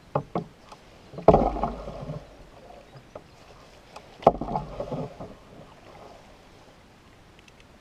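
Wooden canoe paddle taking two strokes about three seconds apart, each starting sharply and trailing off in a short swirl of water, with a few light clicks before the first.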